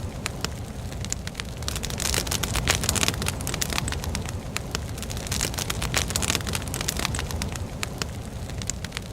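Logs burning in a fireplace, crackling with many sharp pops over a steady hiss of flame; the hiss swells twice.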